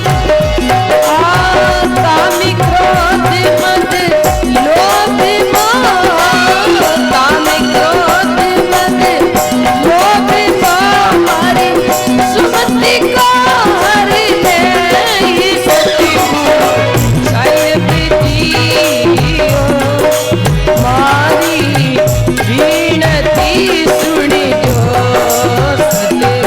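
Instrumental interlude of a Rajasthani folk bhajan: a melody with sliding, ornamented notes over a steady drone, backed by hand drums and rattling percussion.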